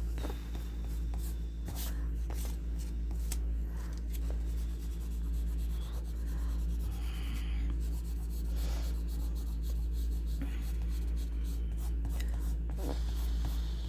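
Graphite pencil scratching across paper in short, irregular strokes as a portrait is shaded, over a steady low hum.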